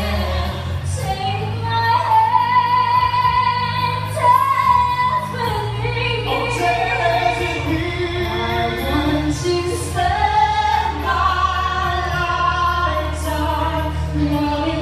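A woman singing a slow love ballad into a microphone over instrumental accompaniment, with long held notes, amplified through a sound system in a large hall.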